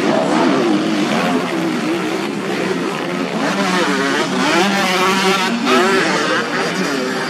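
Several motocross dirt bike engines revving up and down as the bikes race through corners, their pitches rising and falling over one another.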